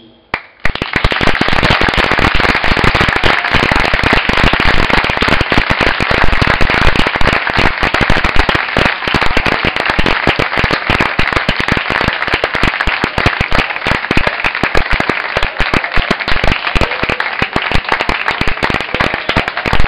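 A long string of firecrackers going off, a rapid, continuous crackle of sharp bangs that starts suddenly about half a second in and keeps on, loud throughout.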